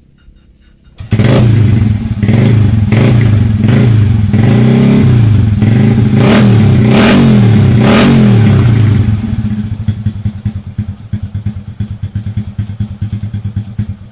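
Honda Revo motorcycle's single-cylinder four-stroke engine starting about a second in and revved in repeated throttle blips. It then drops to a lower, uneven idle for the last few seconds.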